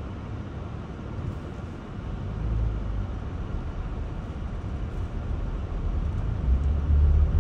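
Low rumble of vehicle engines and road noise as cars move off over the railroad crossing once the gates lift. It swells louder about two and a half seconds in and again near the end.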